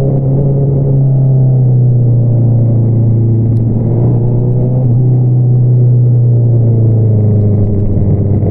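2022 Honda CBR650R's inline-four engine running through an Akrapovič single-outlet exhaust. It holds a steady drone at cruising revs, dipping slightly lower in pitch about seven seconds in.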